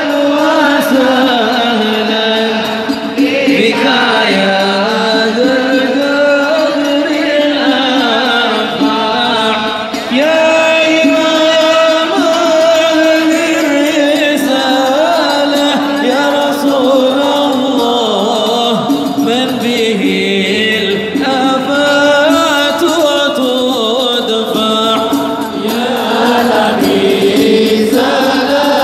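A large crowd singing an Islamic devotional chant together, a continuous sung melody with no pause.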